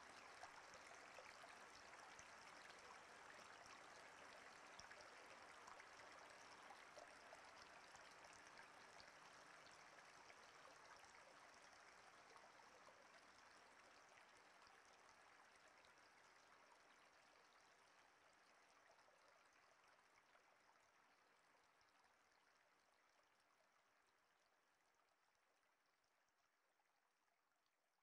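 Faint running water, a steady stream-like rush that fades slowly toward silence over the whole stretch.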